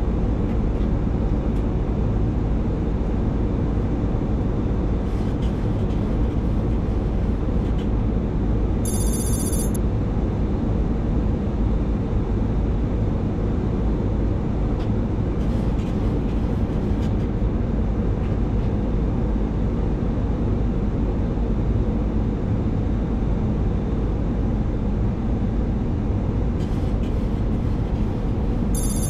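Steady rumble and rush of air and engines on a Boeing 737-800's flight deck during the descent on approach. A short high-pitched electronic tone sounds about nine seconds in and again at the end.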